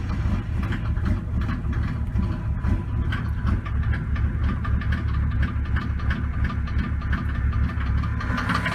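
Mercedes OM603 3.5-litre turbo-diesel straight-six idling unevenly with diesel clatter just after a cold start. Several failed glow plugs leave it firing on only some cylinders until it warms up, and it smokes.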